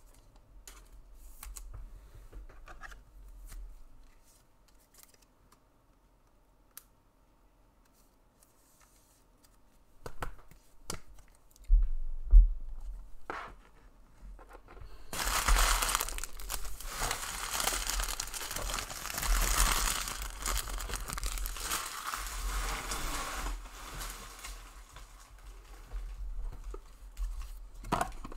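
Soft handling of trading cards with a few light clicks, then from about halfway a long spell of packaging being torn open and crinkled.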